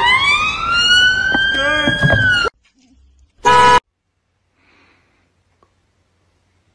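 Police siren wailing, rising in pitch and then holding high, over voices and street noise, cut off abruptly after about two and a half seconds. About a second later a short loud tone sounds, and then it is almost silent.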